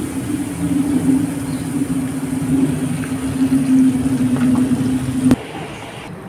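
Hot oil sizzling in a kadai as fried urad dal vadas are lifted out on a wire mesh skimmer, over a steady low hum. The sound stops abruptly about five seconds in.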